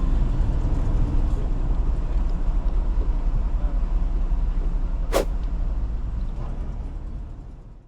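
Steady low rumble of a vehicle running, with one brief sharp sound about five seconds in; it fades out near the end.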